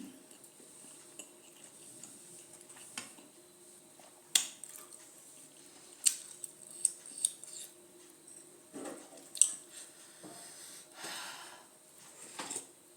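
Cutlery clinking against dishes while eating: a series of sharp, separate clicks, several of them close together in the middle.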